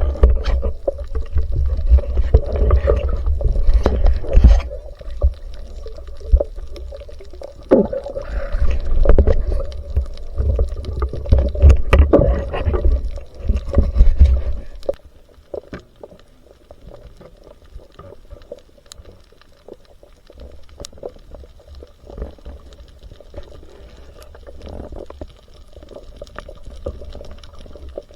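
Water sloshing and gurgling, with scattered sharp clicks and knocks. A heavy low rumble fills the first half, then it drops to a quieter wash after about fifteen seconds.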